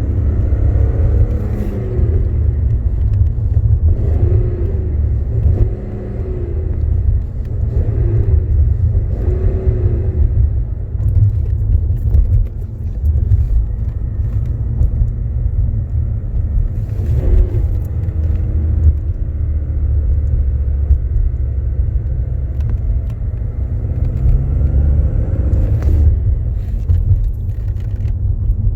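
BMW E46 330Ci's M54 3.0-litre straight-six idling with a steady low rumble, overlaid several times by a whirling, metallic noise that rises and falls in pitch. The whirl comes at the point of clutch disengagement, a sign the owner links to the Valeo single-mass flywheel and clutch.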